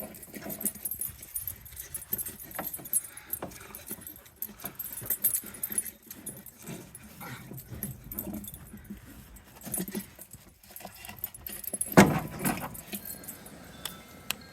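Small metal parts clinking and rattling as a vending machine is taken apart for scrap, with one loud clank about twelve seconds in.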